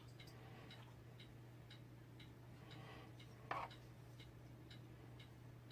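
Faint, regular ticking at about two ticks a second over a steady low hum, with one brief louder rustle about three and a half seconds in.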